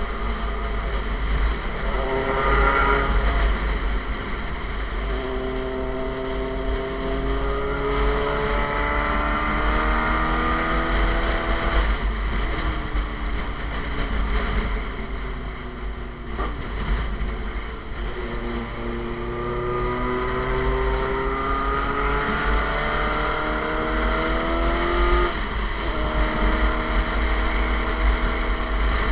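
Suzuki GSX-R sport bike with an SC Project exhaust under way, its engine note rising steadily in pitch as it accelerates, then dropping sharply as the throttle closes, about twelve seconds in and again near twenty-five seconds. Heavy wind buffeting on the microphone runs underneath.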